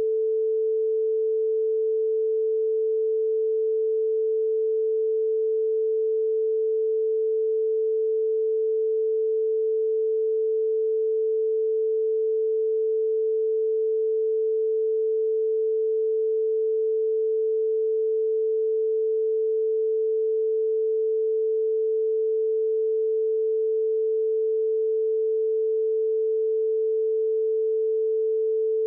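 A steady, unbroken single-pitched tone: a sine-wave censor tone laid over a redacted stretch of an interview recording.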